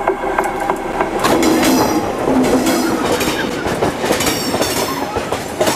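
Full-size railway train rolling past at rail level, its steel wheels clattering over the track, with the clatter thickening about a second in.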